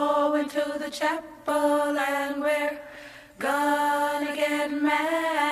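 Background music: a group of voices singing long held notes in close harmony, with little accompaniment, in several drawn-out phrases.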